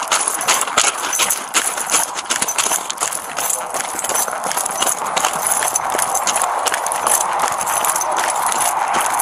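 Body-worn camera jolted as the wearer runs over gravel and grass: rapid, irregular footfalls with gear and the camera knocking on every step, over a steady rushing noise.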